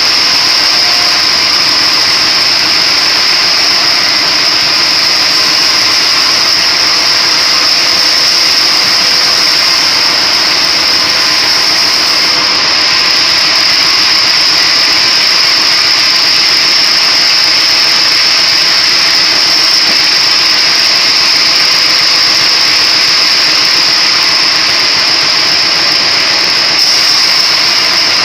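A motor-driven splitting machine running steadily, with a loud even noise and a high whine that does not change.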